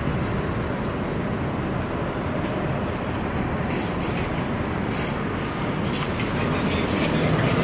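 Steady street traffic noise from city buses and cars running and passing, getting a little louder near the end.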